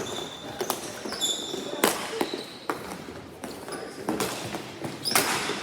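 Ball hockey in play: irregular sharp knocks of sticks and the plastic ball, one louder knock about two seconds in, with short high squeaks of sneakers on the floor.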